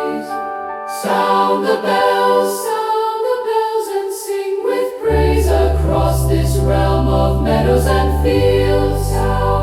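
Choir singing a carol in traditional style, holding sustained chords, with low bass notes coming in about halfway through.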